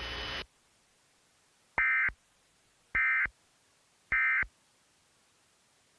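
Emergency Alert System end-of-message signal: three short, identical buzzy digital data bursts about a second apart. They are the SAME 'NNNN' code that marks the close of a broadcast tornado warning.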